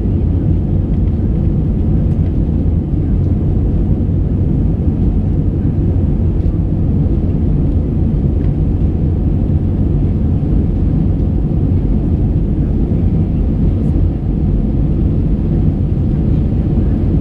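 Airbus A320 cabin noise during the climb after takeoff, heard from a window seat: a steady low rumble of the engines and rushing air that does not change.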